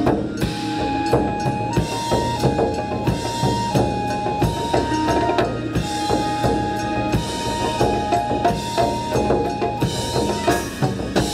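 Japanese taiko drums played fast and hard together in an ensemble. Over the drums runs a melody of long held notes stepping between two nearby pitches.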